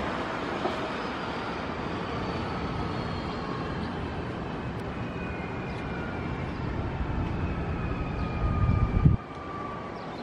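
Nankai 8300 series electric train slowing into a station: wheels rumbling on the rails while the traction motor whine, in several tones, slides slowly down in pitch as it brakes. Near the end a louder low rumble builds and cuts off suddenly.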